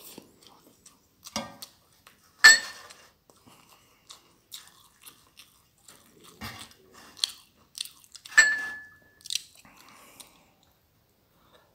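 Close-miked mouth sounds of eating stir-fried glass noodles and goat meat: chewing with scattered wet clicks and smacks. Two louder wet mouth sounds stand out, about two and a half and eight and a half seconds in, the second trailing into a brief thin squeak.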